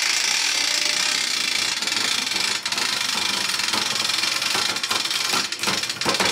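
Ratchet mechanism clicking rapidly and steadily as it draws a natural-fibre rope under a rising load on a tensile test rig. A few sharper, separate clicks come near the end.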